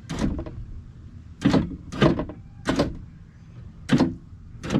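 A series of about six clunks and rattles from the car's door as its parts are worked by hand, spaced irregularly about half a second to a second and a half apart.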